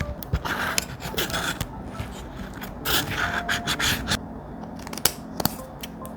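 Close-up paper-crafting sounds on thick paper: two stretches of scratchy scraping, then a few sharp taps near the end.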